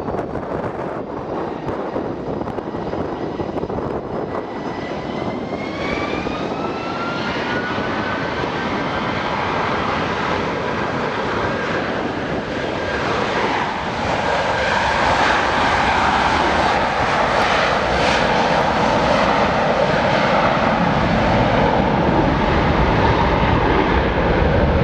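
Boeing 757's Rolls-Royce RB211 turbofans spooling up for takeoff: several whining tones glide upward about six seconds in, then the engine noise grows louder and holds at a steady high level.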